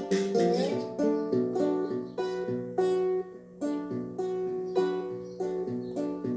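Plucked strings played with a wooden incense holder as the slide: notes and chords picked in a steady rhythm, with a slide up in pitch near the start.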